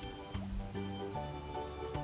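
Background music: a melody of short held notes changing every few tenths of a second over a low bass line.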